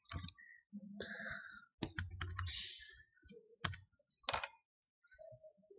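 Computer keyboard and mouse clicks: several sharp separate clicks, with some soft rustling between them.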